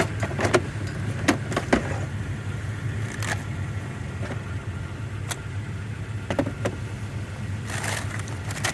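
Car engine running steadily, with a few scattered sharp clicks and knocks.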